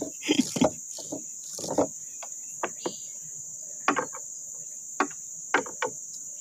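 Steady high-pitched drone of insects from the riverbank forest, with a dozen or so short sharp knocks and clicks scattered through it as fishing gear is handled in a wooden boat.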